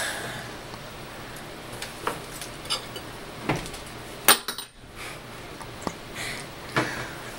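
Dishware knocking and clinking as a plastic bowl of soup is handled on a wooden table: a few separate knocks, the sharpest and loudest a ringing clink about four seconds in.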